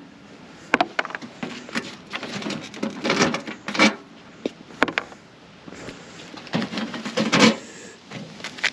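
Irregular scrapes, knocks and clicks of hands working an old mailbox loose from its mount and handling its screws.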